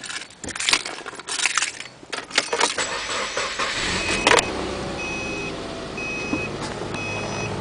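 Keys rattling and clicking in the ignition of a 2008 Subaru Impreza Outback Sport, then its 2.5-litre flat-four starts about four seconds in and settles into a steady idle. A short warning chime beeps about once a second over the engine.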